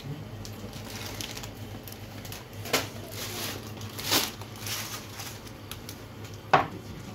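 Groceries being set down on a wooden shop counter: plastic-wrapped packets rustling, with three sharp knocks as items land, the loudest near the end as a can is put down.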